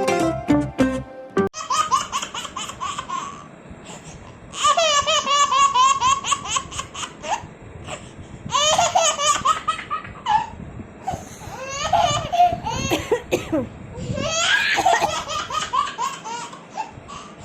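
Baby laughing in repeated high-pitched bouts of quick giggles with short pauses between, after a short strummed-guitar music cue that ends about a second and a half in.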